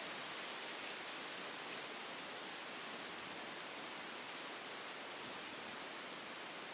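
Wind blowing steadily as an even, airy hiss, like wind through trees.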